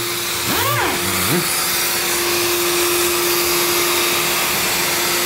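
Orbital sander with dust extraction running against a clear-coated carbon-fibre side panel, sanding the fresh clear coat flat: a steady hiss with one steady tone held through it. Its pitch sweeps briefly up and down about a second in.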